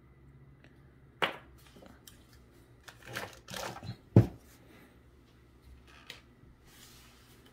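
Plastic action-figure packaging and figure being handled: a few scattered clicks and rustles, with the sharpest knock about four seconds in.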